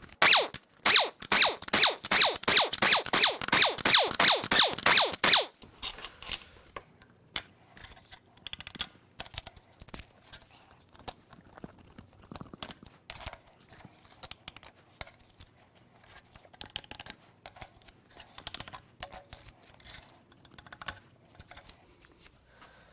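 Air impact wrench hammering loose the main bearing cap bolts of a Jeep 4.0L inline-six for about five seconds, a fast rattle. After that, light metal clinks and knocks as the loosened caps and bolts are lifted off the block by hand.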